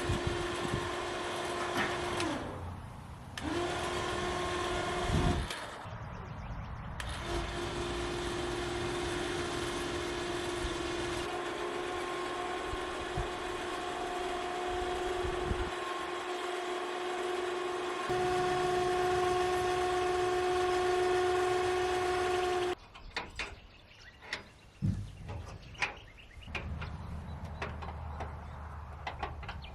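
A motor running with a steady, even-pitched hum, stopping briefly twice. Near the end it gives way to scattered clicks and knocks.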